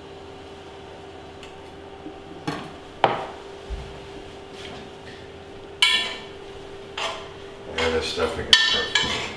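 Metal cookware and utensils clinking and knocking a few times, then a denser ringing clatter near the end as a glass pot lid and pots are handled on the stove. A steady hum runs underneath until then.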